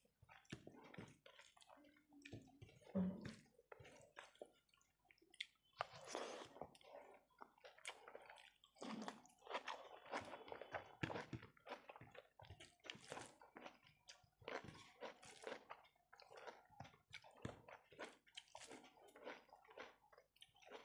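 Faint close-miked mouth sounds of someone chewing a mouthful of rice, with irregular wet smacks and clicks, and soft squishing as fingers mix rice with dal and curry on the plate.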